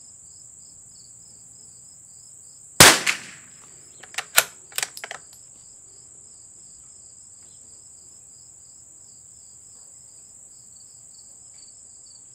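A single .22 LR shot from a stock CZ 452 bolt-action rifle about three seconds in, a sharp crack with a short echo. A second later come a few quick clicks as the bolt is worked. Insects drone steadily throughout, with a high even tone and a faster pulsing beneath it.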